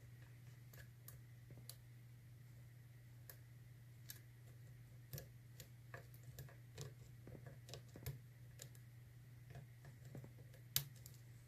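Faint, irregular small clicks of a lock pick working the sliders and pins inside a Yale Platinum TS007 dimple euro cylinder, over a steady low hum.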